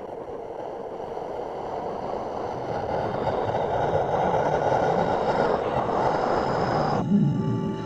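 Film sound-design ambience: a rumbling noise that swells steadily louder, then cuts off suddenly about seven seconds in, giving way to held, eerie musical tones.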